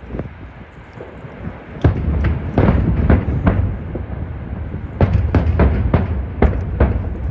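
Aerial fireworks bursting in a rapid series of sharp bangs over a low rumble, starting about two seconds in and coming thickest near the middle of the stretch.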